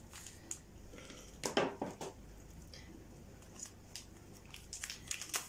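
Faint crinkling and rustling of a yeast packet being handled and emptied over the dough bowl, with scattered soft clicks, a small cluster about a second and a half in and more near the end.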